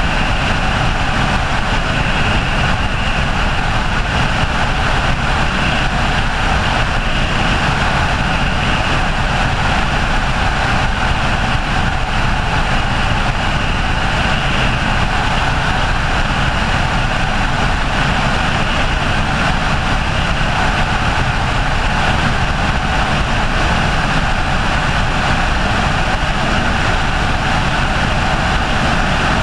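Helicopter in flight: steady, loud engine and rotor noise that holds an even level and pitch throughout.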